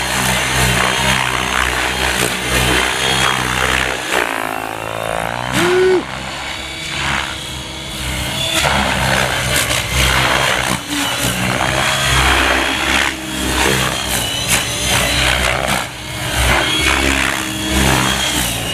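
Gaui X7 RC helicopter flying aerobatics at low head speed: a steady rotor and motor drone whose pitch sweeps down and up as the blades load during manoeuvres, with a clear glide about five seconds in.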